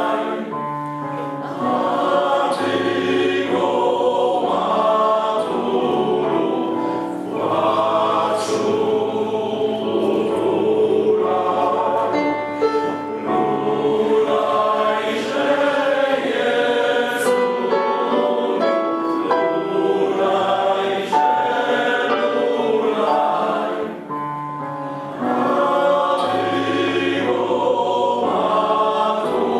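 Men's choir singing in parts, holding long notes in several voices and breathing briefly between phrases.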